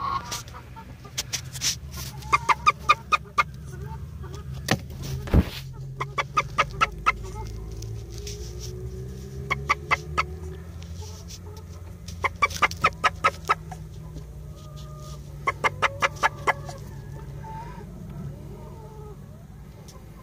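Domestic hen clucking in five quick runs of short, evenly spaced clucks, about five or six a second, over a steady low hum. There is one sharp knock about five seconds in.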